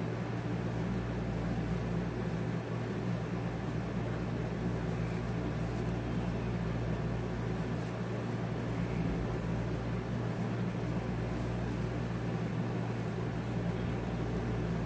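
Room air conditioner running with a steady low hum.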